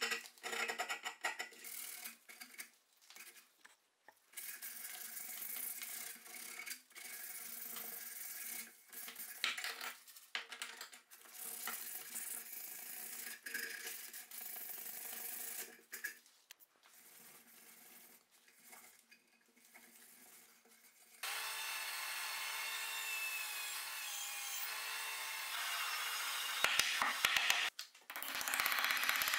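Hand abrasion of a wooden axe handle: irregular rubbing strokes of a file and sandpaper on the wood, turning to a steadier rubbing about two-thirds of the way through. Near the end come a few sharp taps of a small hammer driving a wooden wedge into the axe eye.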